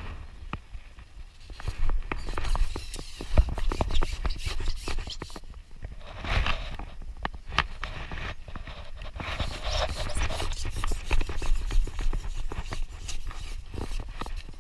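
A rapid, irregular series of sharp clicks and knocks with short bursts of scraping, over a steady low rumble.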